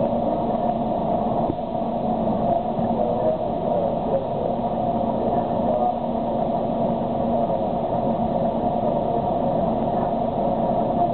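Steady hum and rumble inside a moving aerial tram cabin as it runs along its cables, with no distinct events.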